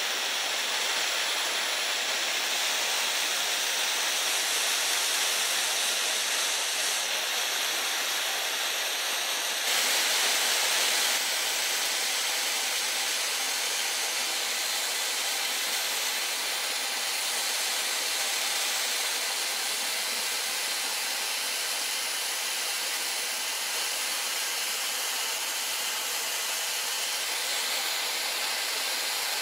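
Handheld gas torch flame hissing steadily as it chars the surface of an oak frame, with a brief louder stretch about ten seconds in.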